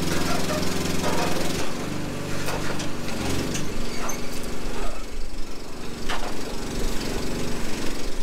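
Kubota KX040 excavator's diesel engine running under shifting load, its note changing about a second and a half in, with several sharp knocks and clanks over it.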